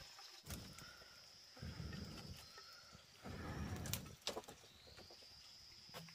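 Steady high-pitched insect buzz from the surrounding forest, with a few sharp clicks and two short stretches of low rustling noise.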